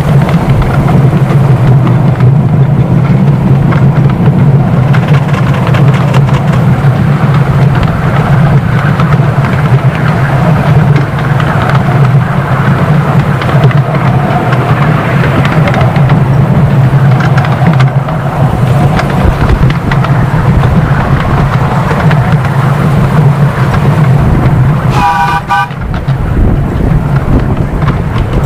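Miniature steam locomotive running along its track, a steady loud rumble with fine ticking, heard from right behind the engine. Near the end the locomotive's whistle gives one short toot.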